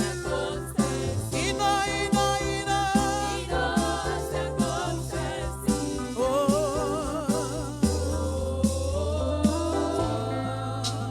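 Gospel worship song: sung vocals with a wavering vibrato over held bass notes and a steady beat.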